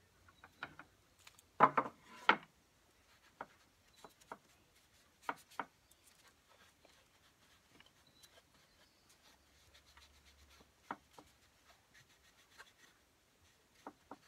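Cloth rag rubbing wood stain into a slatted wooden produce box, a faint scrubbing broken by a few sharp wooden knocks, the loudest about two seconds in.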